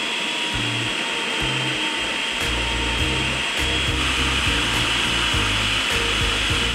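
Electric food processor running steadily, its motor and spinning blade whirring as it mixes crumbly pie-crust dough. Background music with a rhythmic bass line plays under it.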